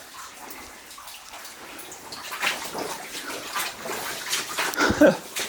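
Water sloshing and splashing as legs wade through the flooded tunnel's water. It is quiet at first, then there are irregular splashes from about two seconds in.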